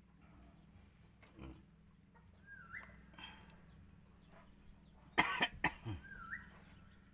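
Chickens clucking, with two short rising calls, and a person coughing twice loudly about five seconds in.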